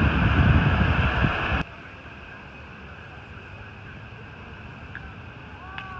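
Wind buffeting a phone microphone: a loud rushing noise with a flickering low rumble that cuts off suddenly about one and a half seconds in, leaving faint outdoor background.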